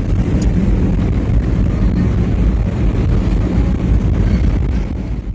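Vehicle travelling along a paved road, a steady low rumble of engine and road noise mixed with wind buffeting on the microphone.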